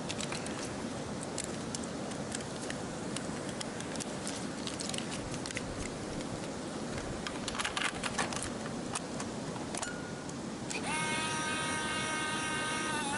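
Roll film being loaded into a medium-format film camera: small clicks and rattles as the spool and camera back are handled, over a steady hiss. About eleven seconds in, a steady motor whine starts and runs on as the camera's built-in winder advances the film.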